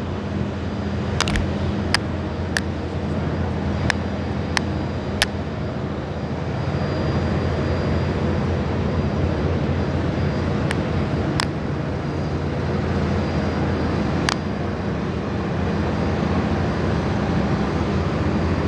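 Steady aircraft engine drone, with a handful of short sharp clicks scattered through it.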